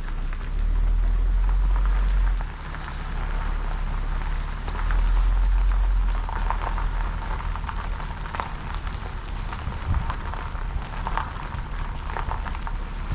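Low, steady road rumble of a vehicle on the move, swelling twice in the first half, with a crackling patter of small ticks over it.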